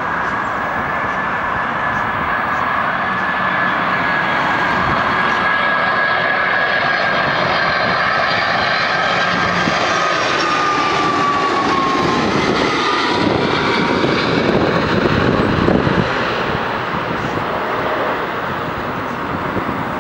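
Twin-engine widebody jet airliner with gear down on final approach, passing low overhead: a steady engine roar with a high whine that slides down in pitch as it goes by. The roar swells to its loudest about fifteen seconds in, then eases.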